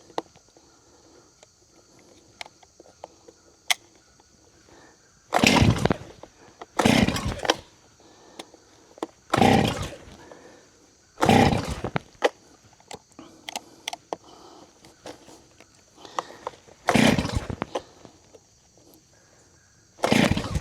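Stihl MS 271 Farm Boss chainsaw being pull-started about six times, each yank of the starter cord giving a short burst of cranking noise, with small clicks and rattles of handling in between. The engine never catches, a sign that it is flooded and the spark plug wet.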